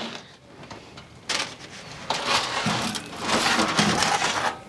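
Aluminium foil crinkling and a clay cazuela scraping as the foil-covered pot is dragged out of a wood-fired oven. The rustling and scraping start about a second in and go on in irregular bursts.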